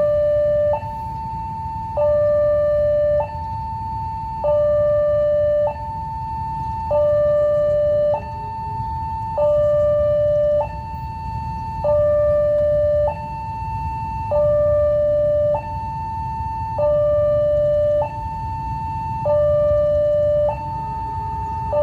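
Railway level-crossing warning alarm sounding a loud two-tone signal that alternates high and low about every second and a quarter, warning that a train is approaching with the barriers down, over a steady low rumble.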